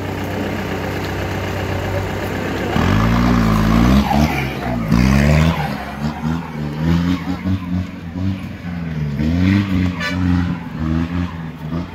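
Engine of a modified off-road Jeep, holding a steady pitch for the first few seconds, then revving up and down again and again as it works up a dirt trail.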